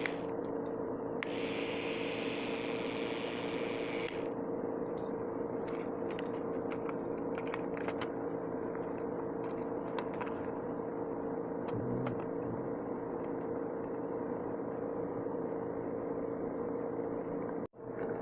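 Battery-powered Plarail Hurricane toy train's small electric motor and gearbox running steadily with a constant hum, with a few light clicks.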